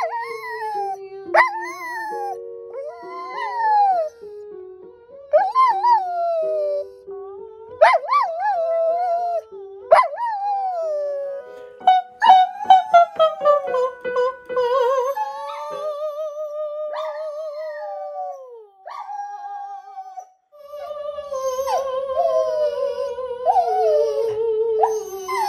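Corgi howling in a string of sliding, falling yowls, singing along with a simple melody of steady held notes during the first ten seconds. Later the howls are held longer and waver in pitch.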